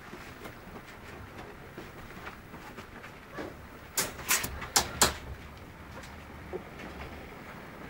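Ten-day-old puppies nursing, with soft suckling and small coo-like squeaks and grunts. About four seconds in comes a quick run of four or five sharp clicks, louder than the rest.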